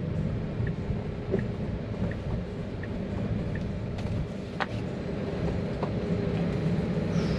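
Road and tyre noise heard inside a moving Tesla Model 3's cabin: a steady low rumble with no engine note, and a faint regular tick about every 0.7 seconds.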